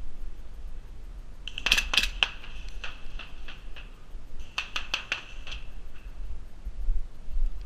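Two short bursts of airsoft gunfire, each about a second of sharp metallic clicks with a ringing clink, a few seconds apart.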